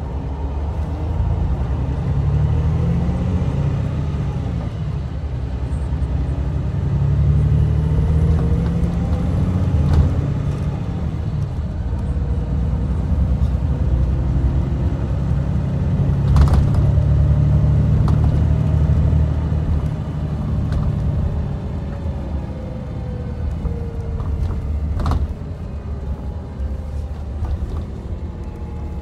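Coach engine and road rumble heard from inside the passenger cabin while driving. The engine note repeatedly climbs and drops, and there are three sharp knocks from the body or fittings.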